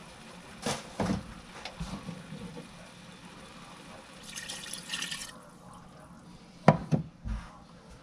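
Tomato sauce poured from a glass measuring cup into a pressure cooker pot, a second or so of pouring about halfway through. Kitchenware clinks and knocks come before it, and two sharp knocks, the loudest sounds, come near the end.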